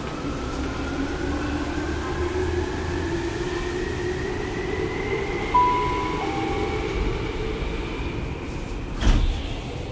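Tokyu 6000 series electric train heard from inside a car while running and accelerating: the traction motor whine rises steadily in pitch over the rumble of the wheels. About halfway through comes a short two-note beep, and near the end a sharp thump.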